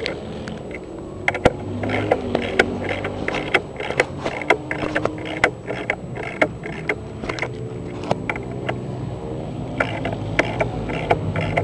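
Racing quad engine running, its pitch shifting up and down, with many sharp clicks and knocks scattered throughout.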